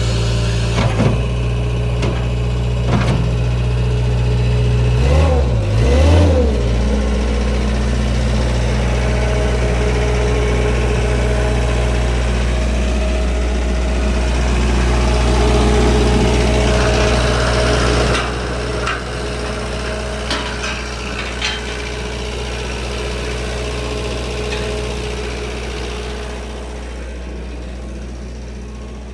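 Clark Bobcat 725 skid steer loader's diesel engine running steadily. Its speed wavers briefly about a fifth of the way in, and it settles lower and quieter a little past halfway, with occasional knocks and clatter from the machine.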